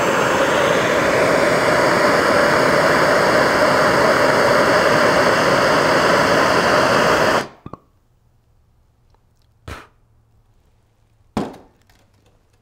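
Handheld propane torch burning with a loud, steady rushing hiss that cuts off suddenly about seven and a half seconds in as the valve is shut. Two short knocks follow.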